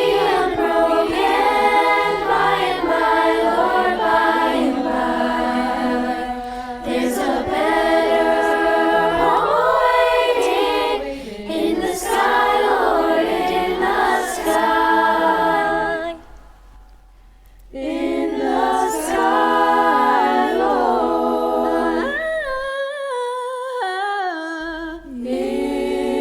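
Girls' choir singing, breaking off for a short pause about two-thirds of the way through before the voices come back in.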